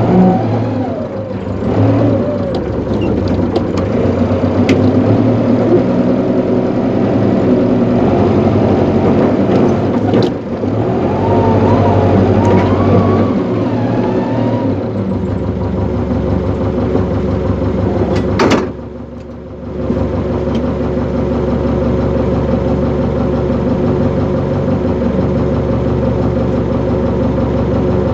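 Engine with a vertical exhaust stack running steadily, heard from beside the stack; about halfway through it settles into a lower, steadier note. About two thirds of the way in there is a sharp click and the sound dips for about a second before returning.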